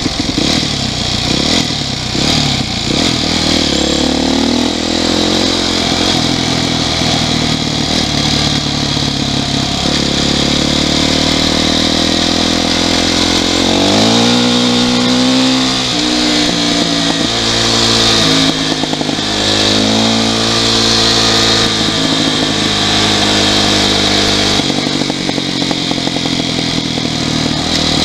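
Yamaha YZ450F's single-cylinder four-stroke engine under way at speed, its note climbing and dropping back again several times as the throttle and gears change, most clearly about halfway through. It sounds healthy, with no unusual noises yet.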